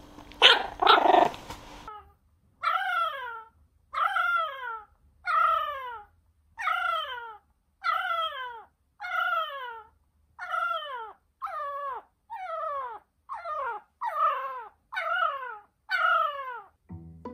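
Jack Russell terrier puppy giving two sharp barks, then howling in a long series of short cries, each sliding down in pitch, about one a second.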